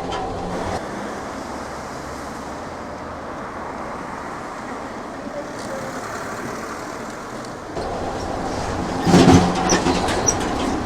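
Train sound effect: a railway train running on the track, a steady rumble that grows louder about three quarters of the way through, with a burst of clatter near the end.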